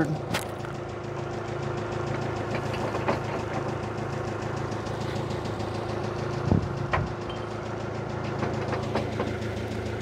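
An engine idling steadily, with a few short knocks, the strongest about six and a half and seven seconds in.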